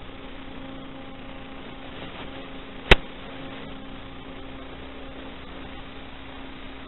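Steady electrical hum and static hiss from the analog FPV video link's audio channel as recorded by the goggles' DVR, with one sharp click about three seconds in.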